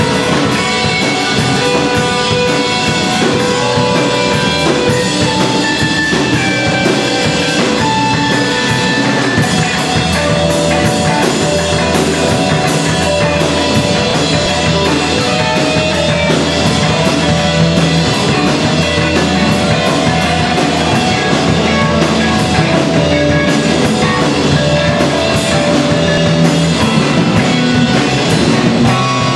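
Live rock band playing: electric guitars over a drum kit and bass guitar, with steady drum hits and sustained guitar notes. The low bass notes grow heavier about a third of the way through.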